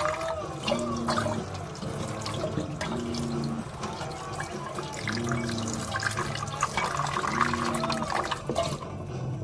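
Tap water running into a sink with irregular splashing as a reusable K-cup coffee filter and its plastic holder are rinsed under it. The splashing thins out just before the end.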